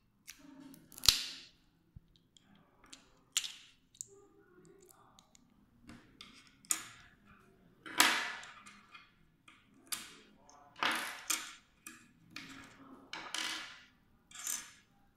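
Irregular clicks, snaps and scrapes of a Geekvape Aegis box mod being taken apart by hand: a small tool prying at the casing and the front panel, and parts handled and set down on a table. The sharpest snaps come about a second in and about eight seconds in.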